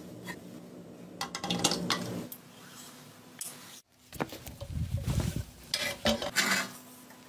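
Metal motorcycle parts clinking and knocking as they are handled, including a chrome exhaust pipe being set down and fitted. The sound comes in two bursts of clatter, one about a second in and a longer one in the second half, with a brief dropout in between.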